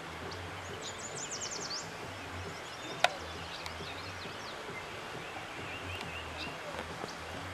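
Several songbirds singing and chirping, including a quick high trill about a second in, over a steady rush of a nearby stream, with one sharp click about three seconds in.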